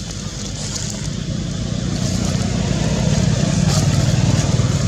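A motor vehicle engine running, its low hum growing louder through the middle and easing near the end, as if passing by.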